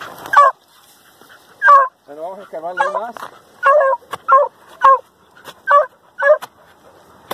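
An animal's short, loud calls, about eight in a row, each dropping in pitch, with a longer wavering call about two seconds in.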